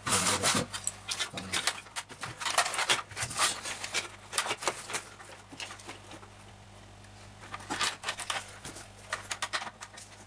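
Hard plastic toy cash register casing being handled and fitted back together: irregular clicks, knocks and scrapes of plastic parts, busiest at the start and again in the middle, with a quieter stretch before a few more clicks near the end.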